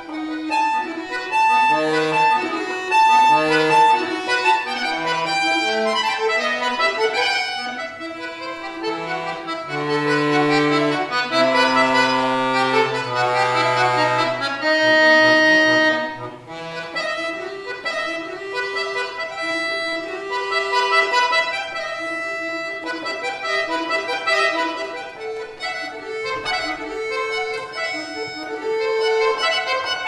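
Solo chromatic button accordion (bayan) playing a classical piece: a running melody over held chords, with low sustained bass notes and the loudest stretch in the middle. The sound thins out briefly about sixteen seconds in before the melody carries on.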